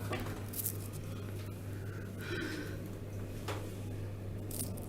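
Steady low hum inside a Thyssenkrupp lift car, with a few faint clicks and small handling noises.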